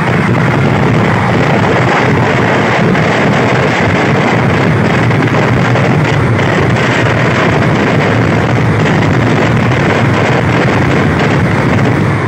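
A dense barrage of fireworks going off close by, loud, the rapid blasts running together into one continuous din.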